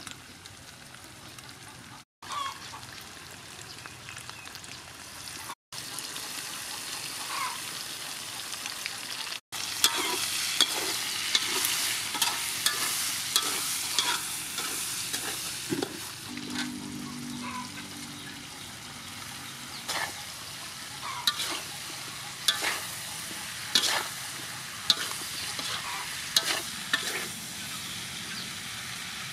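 Food sizzling and frying in a steel wok while a metal spatula stirs it, scraping and clanking against the pan. The sizzle grows louder about a third of the way in, and the spatula clanks come about once a second in the second half.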